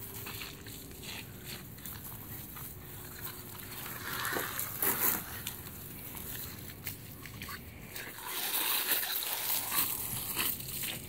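Garden hose spraying water onto grass, made to spray by a young German Shepherd biting on the hose end, with crinkly chewing and rustling mixed in. The spray gets louder about four seconds in and again from about eight seconds on.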